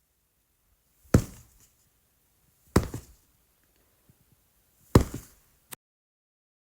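Three single sharp knocks, each with a short rattling decay, spaced about a second and a half to two seconds apart, followed by a brief click; a dubbed-in knocking sound effect.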